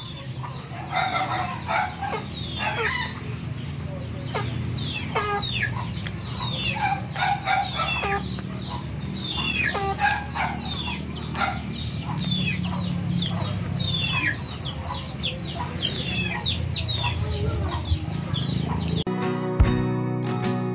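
Chickens calling and clucking, many short falling calls at irregular intervals, over a steady low hum. Strummed acoustic guitar music comes in near the end.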